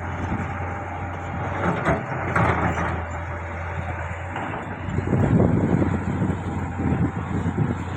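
Diesel engine of a heavy earthmoving machine running steadily. There are short bursts of sharper noise about two seconds in, and rougher, louder working noise from about five seconds on.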